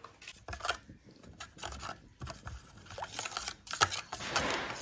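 Metal spoon stirring mashed guava juice in a stainless steel bowl: irregular clinks and scrapes of the spoon against the bowl, with a longer scrape about four seconds in.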